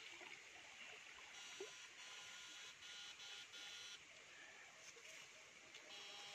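Near silence, with a faint high-pitched buzzing hiss that comes and goes in stretches of a second or so over a few faint steady whines.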